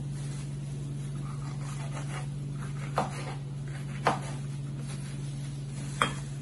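Kitchen knife chopping vegetables on a plastic cutting board: three sharp knocks of the blade striking the board in the second half, over a steady low hum.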